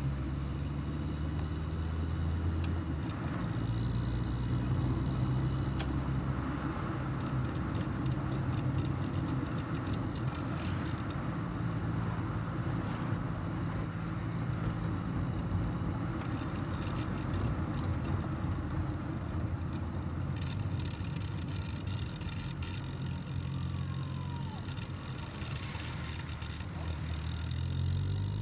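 1984 Volkswagen Golf Mk2 GL's carburetted four-cylinder engine pulling the car along at steady speed, with tyre and road noise. The engine note climbs under acceleration at the start and again near the end.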